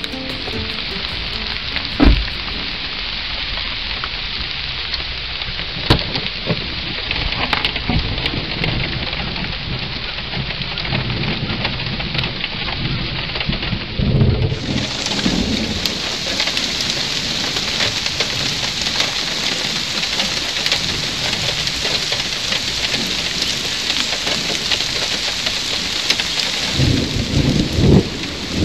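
Heavy rain falling steadily, with thunder: a couple of sharp cracks in the first few seconds and low rumbles around the middle and near the end.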